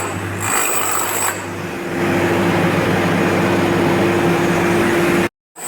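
Power tool running steadily on a demolition job, with a steady hum; it gets louder about two seconds in.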